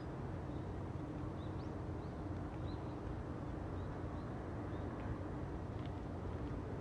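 Steady low city rumble, with faint, scattered bird chirps throughout.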